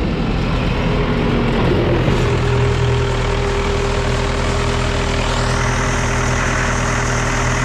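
Diesel engine of an MTZ Belarus 892 tractor running steadily, a deep even drone; a higher hiss rises in over it about five seconds in.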